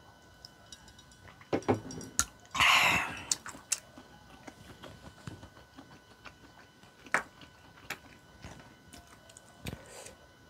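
Tableware handled at a meal: a drinking glass, chopsticks and a plate clicking and knocking against the table in a handful of separate clicks. One loud, short rush of noise comes about two and a half seconds in and is the loudest sound.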